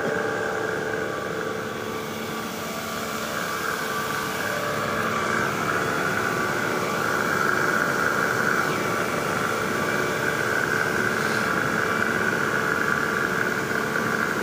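Marble-block reinforcement vacuum pump running steadily: a constant machine hum with a higher whine that grows a little louder a few seconds in.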